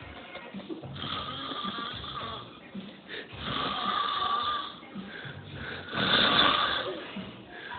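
A man snoring heavily in deep sleep: three long, rasping snores about two and a half seconds apart, the last the loudest.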